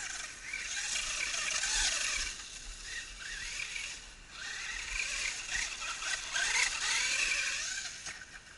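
Brushed electric motor of a 1/10 FS Racing Marauder RC truck on 3S, whining up and down in rising and falling glides as it is throttled on and off, with a hiss of tyres churning through dry leaves. The motor is labouring with leaves clogging the wheels and is running hot.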